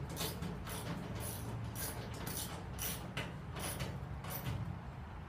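Ratcheting socket wrench clicking as a bolt is tightened, in a steady run of about two to three clicks a second.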